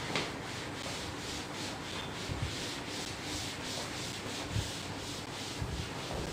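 A chalkboard duster scrubbed back and forth across a chalkboard: a rhythmic rubbing hiss, about two to three strokes a second, with a few dull knocks along the way.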